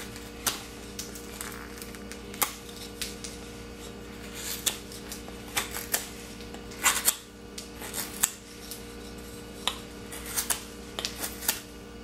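A sharp high-carbon steel knife blade shaving curls off a wooden board in short, irregular strokes, some in quick runs of two or three, each a crisp scrape.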